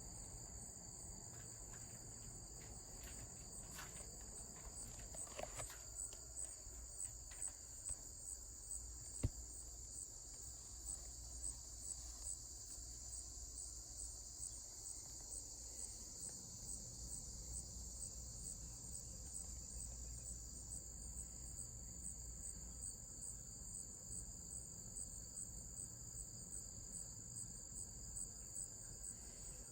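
Steady high-pitched chirping of insects such as crickets, with a regular pulse throughout. A few faint knocks come between about four and nine seconds in, then one sharp click.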